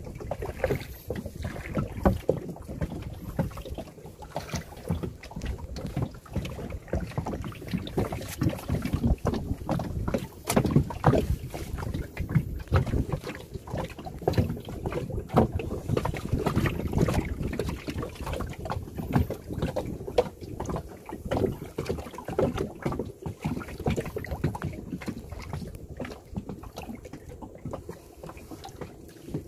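Water slapping and splashing against the hull of a small boat moving across floodwater, with gusty wind buffeting the microphone. There are uneven low thumps and no steady engine tone.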